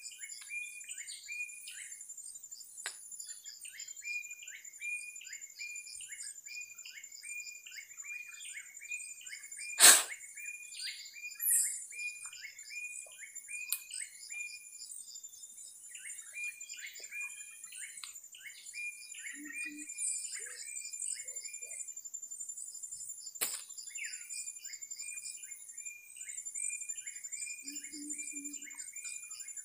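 Birds chirping in rapid repeated series, with a steady high-pitched buzz above them. A sharp knock about ten seconds in is the loudest sound, with a weaker one later.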